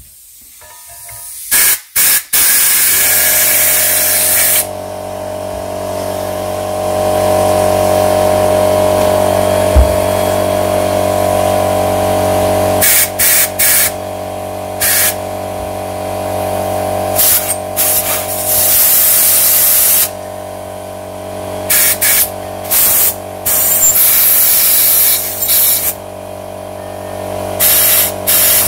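Compressed-air blow gun blasting air through the oilways of a Triumph Trident T160 crankshaft in repeated hissing bursts, some brief and some a couple of seconds long, to blow the loosened crud out of the drillings. A steady motor hum, the air compressor running, starts about two seconds in and continues underneath.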